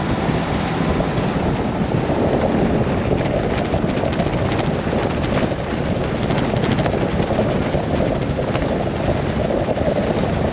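Pickup truck driving on a dirt road: a steady rumble of tyres, engine and suspension, with wind buffeting the microphone.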